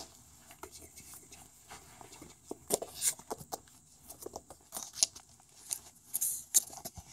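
Irregular scratchy clicks and taps of kittens' claws and paws scrabbling on a wooden floor as they bat at a wand toy, a few sharper ones a little under 3 s in and around 5 to 6.5 s.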